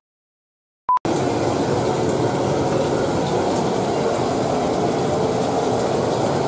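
A short electronic countdown beep right at the start and another about a second in, then a steady, even rushing noise of kitchen background that carries on unchanged.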